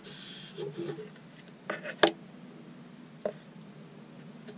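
Plastic tub scraping and crackling as a cured resin casting is worked out of it, with a few sharp clicks and knocks, the loudest about two seconds in.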